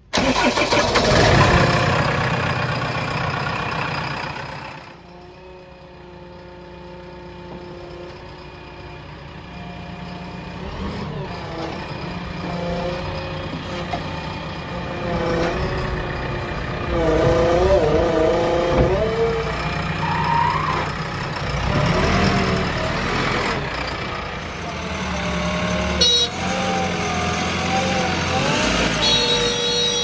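JCB 3DX backhoe loader's diesel engine running. It is loud at first, drops back a few seconds in, then builds again with its pitch rising and falling as it is revved.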